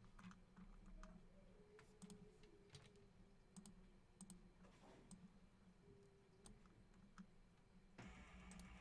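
Faint, irregular clicks of a computer mouse and keyboard being worked, over a low steady hum.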